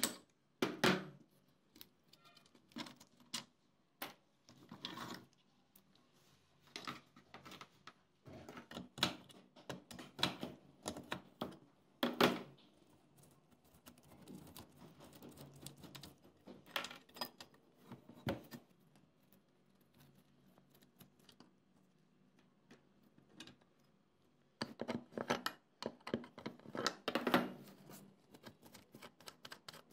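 Irregular metallic clicking, clinking and scraping of hand work on the rusty steel stand of an old exhaust fan: a wrench on a bolt and fingers working a small bolt and nut on the base plate, in short clusters with pauses between.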